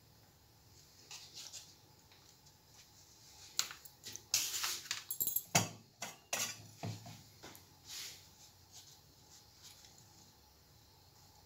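Kitchen utensils being handled on a plate: a run of light clicks, rustling and clatter in the middle, with a couple of dull knocks, then quiet scraping.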